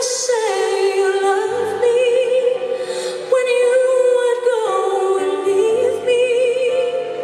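Live female vocal duet in a pop ballad: two voices holding long notes with vibrato, at times in harmony, over soft instrumental backing.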